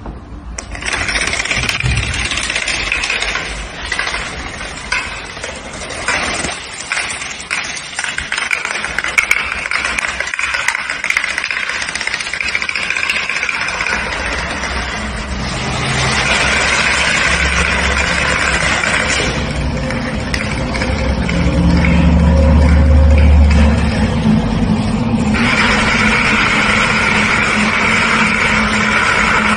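Rows of playing cards standing on edge toppling one after another like dominoes on a hard tiled floor: a fast, continuous clattering rattle of card against card, with some separate clicks a few seconds in.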